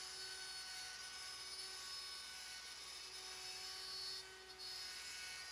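Kobalt router spindle on a LowRider v4 CNC cutting through a stack of quarter-inch acrylic: a steady whine of several pitches over a hiss, dipping briefly a little past four seconds in.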